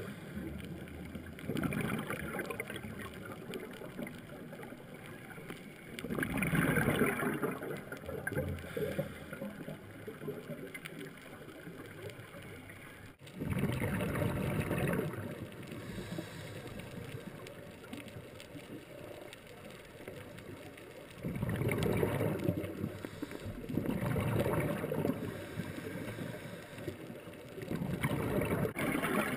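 Scuba diver's exhaled bubbles from the regulator, heard underwater: gurgling bursts of a second or two, coming back every few seconds over a steady hiss.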